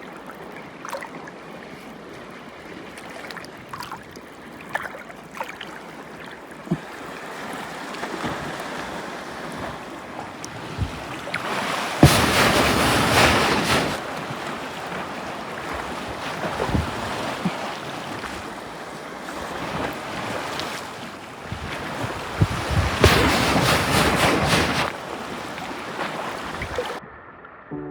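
Seawater surging in and out of a hole in coastal rock, a gurgling "gugogogo" rush with scattered knocks, swelling loudest twice, about twelve and twenty-three seconds in.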